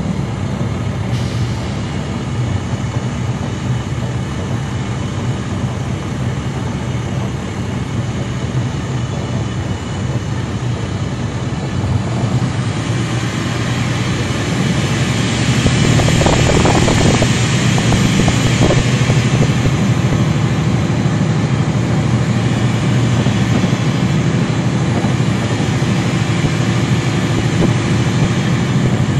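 2009 NABI 416.15 transit bus's Caterpillar C13 diesel engine running steadily with a deep hum. It grows louder about twelve seconds in and stays louder to the end.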